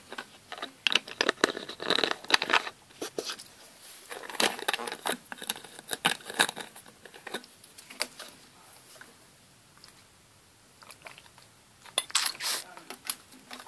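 Close-miked crinkling and crackling handling sounds in irregular bursts with sharp clicks, quieter for a few seconds before a last burst near the end.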